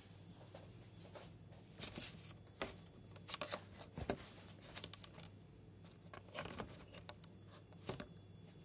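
Faint scattered clicks and rustles of handling noise, a few seconds apart, over a low steady hum.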